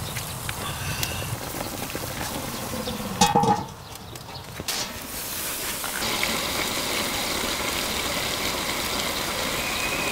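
Chicken drumsticks and aged kimchi braising in a cast-iron cauldron, the sauce bubbling and hissing, with a short metallic clank about three seconds in. From about six seconds on the simmer is a steady hiss.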